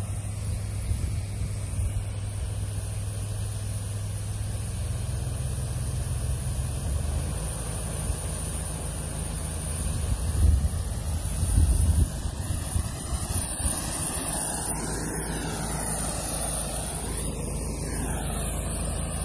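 Water hissing out of a burst high-pressure pressure-washer hose as the jet sprays from the split, over the steady drone of the washer's engine and pump. The hose has blown out under pressure; a couple of louder surges come about ten to twelve seconds in.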